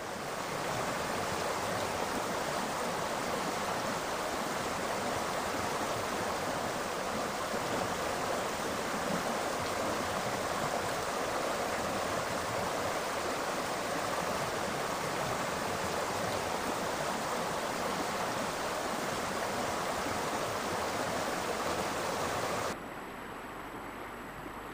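Stream water rushing steadily over a stony bed. About two seconds before the end it drops suddenly to a quieter hiss.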